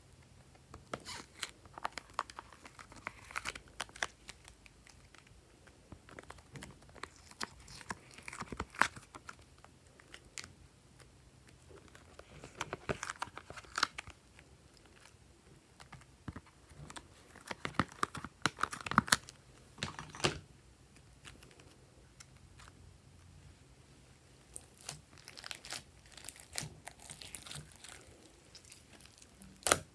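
Thin plastic tray mold crinkling and crackling as blocks of soft modelling clay are peeled and popped out of it by hand, in irregular spells of crackles with quieter pauses between.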